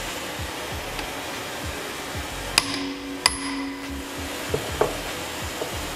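Hammer striking a red-hot iron rivet on a steel test piece: two sharp blows a little under a second apart, the second ringing on like struck steel, then a few lighter taps as the rivet is upset. A gas torch burns with a steady hiss underneath.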